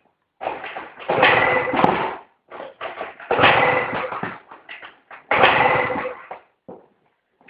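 Yamaha BWS/Zuma 50 scooter with a 70cc Polini big-bore kit being cranked over in three starting attempts of about a second each, roughly two seconds apart, without the engine catching and running: the scooter won't start.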